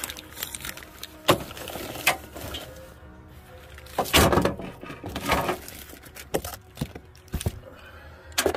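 Handling noises as a plasma cutter torch and its packaging are unpacked: a few sharp knocks and a longer rustle about four seconds in, over faint background music.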